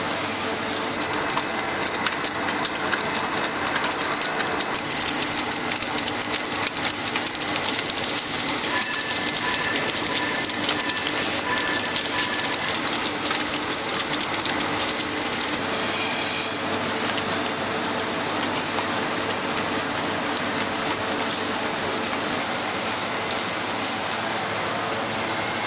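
Flake ice machine running: a steady machine noise under a dense, rain-like crackling patter that thins out after about fifteen seconds into a steadier hiss.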